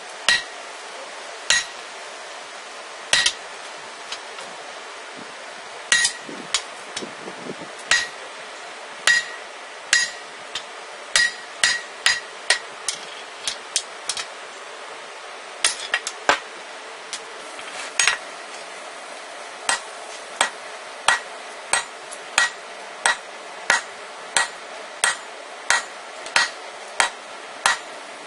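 Hammer blows on red-hot rebar over a steel anvil, each a sharp strike with a short metallic ring. The blows are irregular and spaced out at first, then come in a steadier run of about one to two a second. A steady rushing noise runs underneath.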